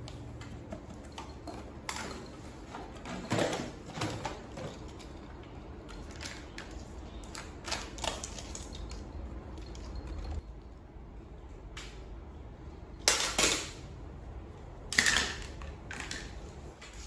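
Small plastic toys and a cardboard box being handled and set down on a tiled floor: scattered light clicks and knocks, with a few louder clatters a little after 3 s, around 13 s and around 15 s.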